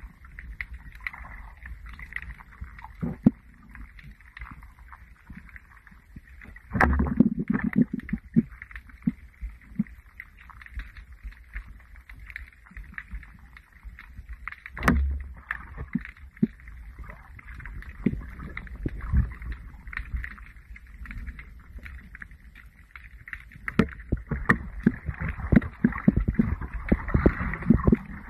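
Muffled underwater sound heard through a submerged camera: water moving and rushing, with scattered sharp clicks and knocks. Louder rushes come about seven and fifteen seconds in, and the clicking and movement grow busier near the end.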